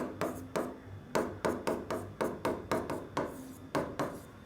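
Quick scratchy strokes of handwriting with a pen, about three or four a second.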